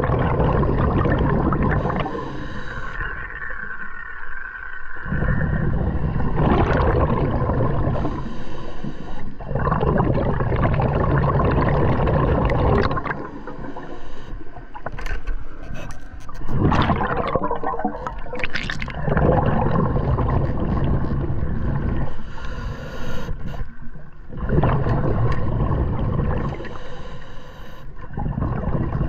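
Scuba diver breathing through a regulator underwater: a long gurgling rumble of exhaled bubbles every few seconds, with quieter inhalations between, one of them a steady hiss.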